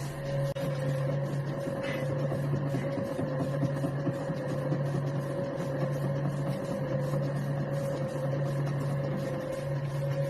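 Metal lathe running steadily: a constant low motor hum with a steady higher tone over it, the hum dipping briefly every second or two.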